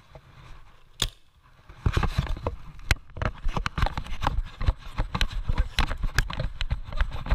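A player runs across grass carrying a paintball marker: quick, irregular footfalls and clattering gear. Scattered through them are sharp pops of paintball markers firing, the first a lone pop about a second in.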